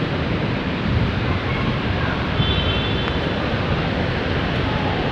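Steady rumble of vehicle traffic and engines in a jeepney terminal, with no clear individual events.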